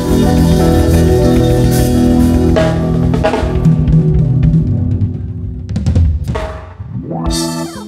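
Live band closing a song: a held chord over the drum kit, then drum fills and cymbal crashes that die away. Near the end comes a short sweep that rises and then falls in pitch.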